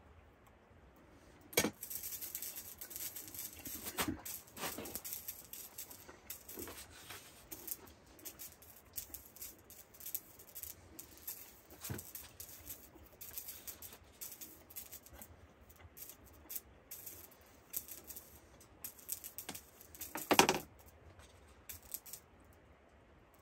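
Scattered light knocks and clicks of utensils and food being handled at a plastic folding table while eating. There is a sharp knock about one and a half seconds in and a louder clatter near the end, like a utensil set down on the table.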